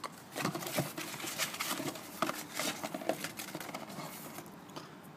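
Cardboard box and packing paper rustling and crinkling as a hand digs through it, an irregular run of crackles and scrapes that dies away near the end.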